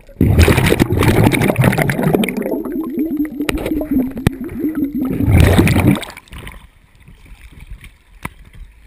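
Muffled rushing and gurgling water heard through an action camera's housing held underwater, with a low droning tone joining in partway through. It drops to faint quiet splashing after about six seconds, when the camera comes back above the surface.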